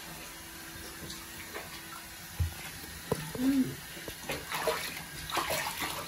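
Handheld shower head spraying water over a wet puppy in a bathtub, with water splashing in the tub; a low thump about two and a half seconds in, and the splashing gets busier in the second half.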